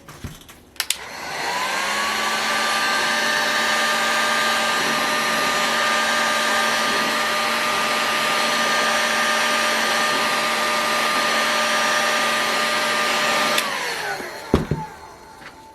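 Electric hot-air gun switched on, running steadily with a blowing hiss and a motor whine for about twelve seconds, then switched off, its pitch falling as it spins down. It is heating the model engine's crankcase to loosen a stuck front bearing.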